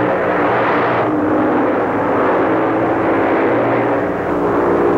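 Motocross motorcycle engines running hard in a steady, loud drone, their pitch shifting a little as the bikes labour up the course.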